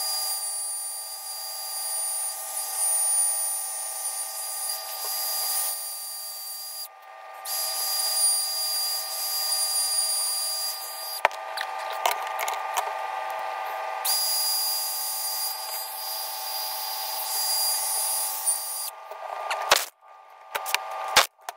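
Handheld power tool running in long spells with a steady high whine, stopping and restarting a few times, with a few sharp knocks near the end.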